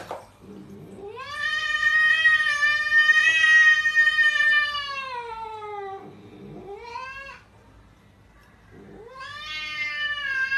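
A cat yowling: a long drawn-out call that falls in pitch at its end, a short rising call, then another long yowl starting near the end.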